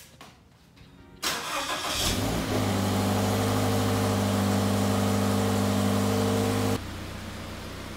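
Toyota car engine with its stock exhaust starting: a short burst of cranking, the engine catches about two seconds in and settles into a steady idle. Near the end the sound drops suddenly to a quieter steady hum.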